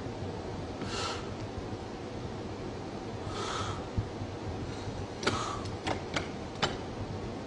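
A man breathing hard and slowly under strain, two long hissing breaths about two and a half seconds apart, then four short sharp clicks in quick succession near the end.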